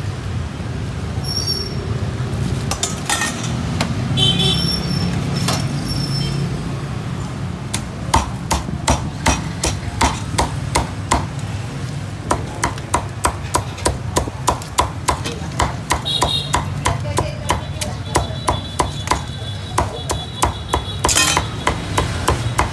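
Cleaver chopping roast pork in a steady, fast rhythm of sharp chops, about three to four a second, starting about eight seconds in; before that only a few scattered knocks.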